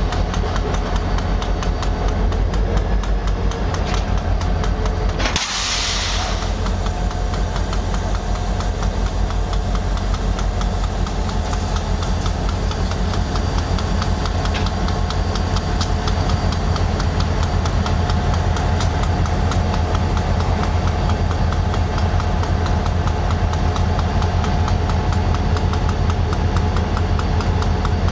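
Diesel locomotive engine (Nickel Plate 901) idling with a steady, even throb, with a short burst of hiss about five seconds in.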